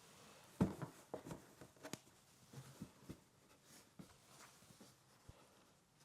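Objects being handled: a scatter of light taps, clicks and soft rustles, about a dozen small knocks spread unevenly, the sharpest just over half a second in.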